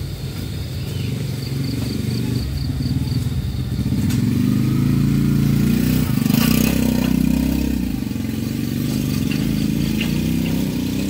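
A vehicle engine running, heard from inside the cab, swelling as if revved between about four and seven seconds in, then settling back.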